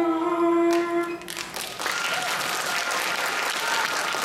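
A child's sung song ends on a long held note about a second in, and the audience breaks into applause that carries on steadily.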